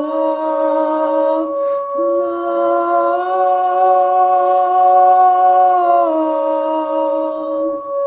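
A man singing long held vowel notes, stepping between a few pitches with a short break about two seconds in, over the steady ringing drone of a singing bowl being rubbed with a mallet.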